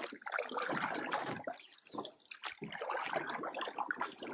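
Running water trickling and splashing in an uneven, babbling stream of sound.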